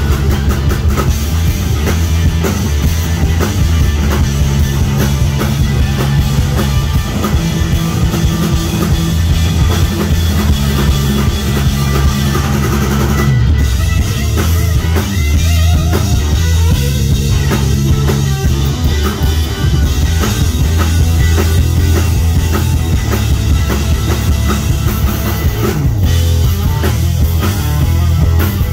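Live rock band playing loudly: distorted Les Paul-style electric guitar over a full drum kit, with a heavy bass line.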